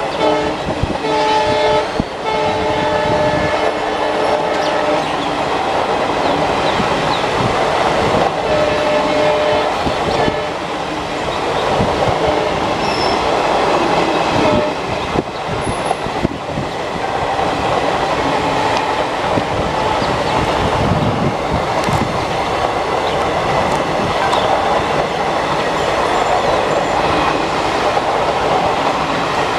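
Indian Railways automobile carrier coaches running past, a steady rumble and clatter of wheels over the rail joints. A multi-tone train horn sounds from about a second in for several seconds, and again briefly around eight seconds in.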